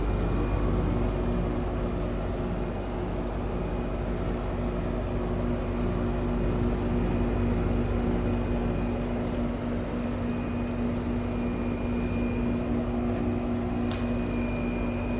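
Air conditioner outdoor unit running steadily, its compressor giving a low hum and its fan a steady rush of air.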